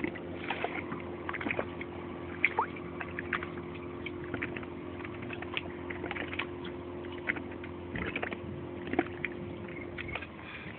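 A steady, low motor hum that stops near the end, with many short, high chirps scattered over it.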